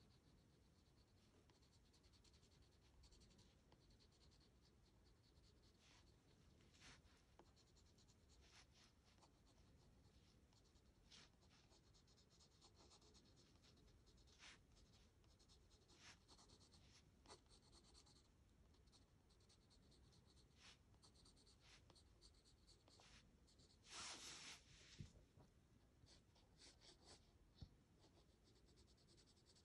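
Graphite pencil scratching faintly on sketchbook paper in short, irregular shading strokes, with a longer, louder run of strokes near the end.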